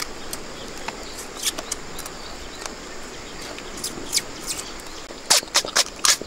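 Crisp cracks and crunches of cooked crab shell being broken apart by hand and bitten: scattered snaps at first, then a quick run of four or five loud cracks near the end.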